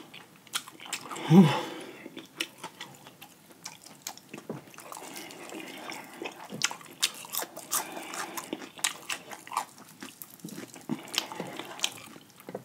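Close-miked chewing and biting of fried chicken legs, with many short crisp clicks throughout. A brief hum from the eater comes about a second and a half in.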